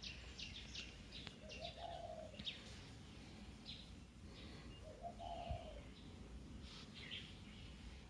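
Faint birds chirping: scattered runs of short, high chirps, with a lower call twice, about two seconds in and again past five seconds.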